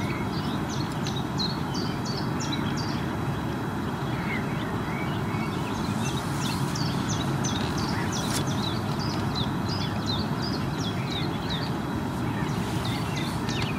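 Birds chirping, many brief high notes repeating throughout, over a steady low background rumble.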